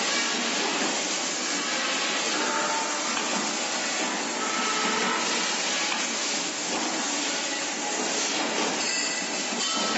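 Hydraulic CNC pipe bending machine running, a steady hiss and hum of the hydraulics with faint brief whistling tones now and then.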